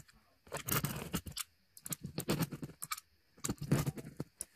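Utility knife blade slicing through carpet pile and backing in three short bursts of scratchy, crackling strokes, cutting out the damaged patch.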